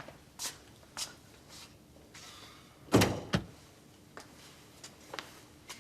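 A door shuts with a heavy thud and a second knock about three seconds in. Scattered footsteps on a hard floor click before and after it.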